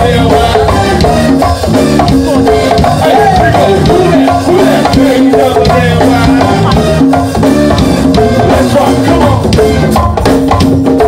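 Live go-go band playing an instrumental 'crank' groove: drum kit and congas with other hand percussion driving a busy, steady beat under held bass and melody notes, with no vocals.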